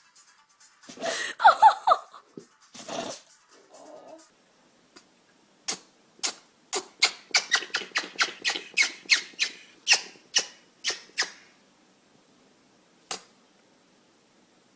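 A small animal squeaks briefly about a second in. Later it sneezes in a rapid run of short, sharp sneezes, about three a second for several seconds, and gives one last sneeze near the end.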